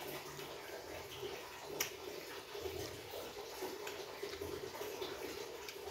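Close mouth sounds of someone eating stir-fried field snails with rice: wet chewing and smacking with small scattered clicks, and one sharper click about two seconds in.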